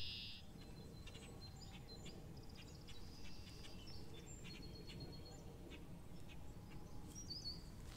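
Small birds chirping and calling faintly in short scattered notes, over a low steady rumble of outdoor background noise.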